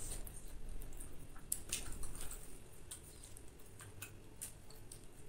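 Crisp lettuce leaves crinkling and crackling as they are folded by hand around pieces of fried chicken: a loose scatter of small sharp clicks.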